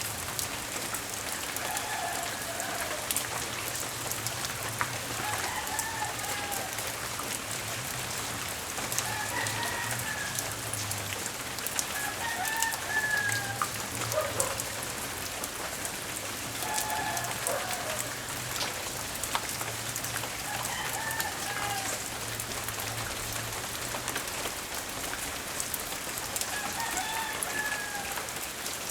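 Steady rain pattering, with sharp drops and drips. A rooster crows about eight times, every few seconds, over a low steady hum.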